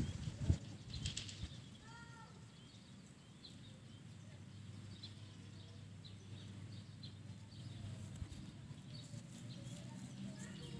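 Faint outdoor background of birds chirping now and then, with a few short arched calls about two seconds in, over a low steady hum. A couple of soft knocks right at the start.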